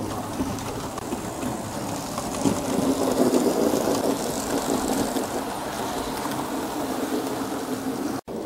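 H0-scale model trains running on the layout: a steady whir of small electric motors and wheels rolling on the track, a little louder about three seconds in as a railbus and coach pass close by.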